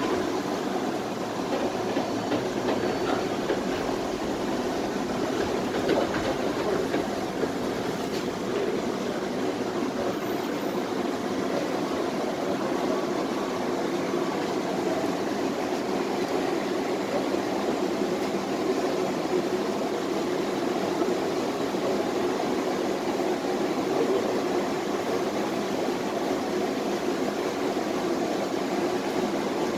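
Inside the passenger cabin of a Tatra T3SU tram running between stops: a steady rumble of wheels on rail and running gear, with a few faint knocks.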